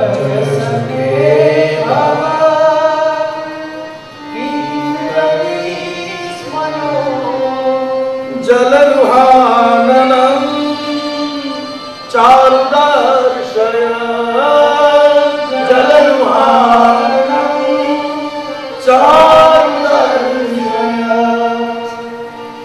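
A man singing a slow devotional song in long, wavering, ornamented notes, with instrumental accompaniment.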